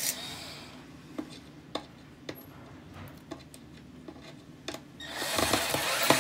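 A few light clicks, then about five seconds in a cordless drill-driver runs hard, driving a non-plug screw straight into the tiled wall without a plastic anchor.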